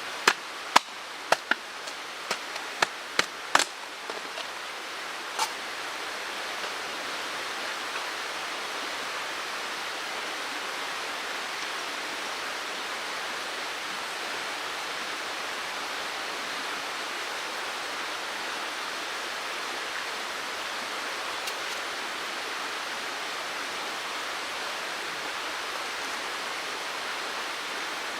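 Mountain stream rushing steadily. Over it, in roughly the first five seconds, comes a run of about ten sharp knocks.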